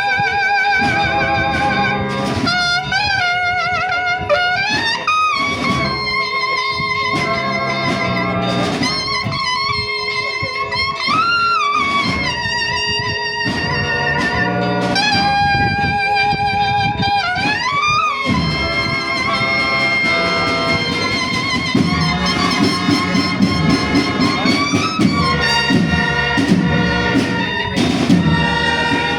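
Brass-led music with trumpets carrying a melody, several notes sliding upward in pitch, over a fuller band accompaniment that grows busier in the second half.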